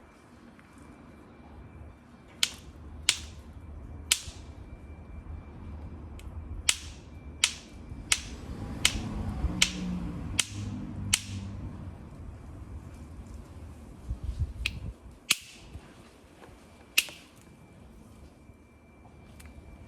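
Flint knapping: a hammer striking a flint core about a dozen times at uneven intervals, each blow a sharp, bright click with a brief ring. Low handling noise lies between the strikes.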